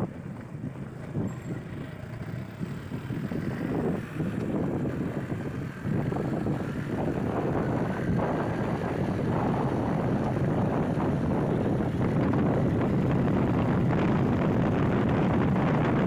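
Suzuki Gixxer SF 155's single-cylinder engine pulling hard as the motorcycle accelerates from low speed, mixed with wind rushing over the microphone. The sound grows louder as speed builds, with brief dips about four and six seconds in.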